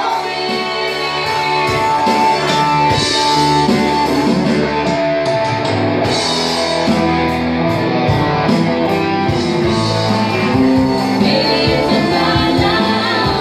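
A rock band playing a guitar-led song, electric guitar over drums, loud and continuous.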